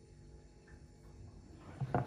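Quiet room tone, then a single sharp knock near the end.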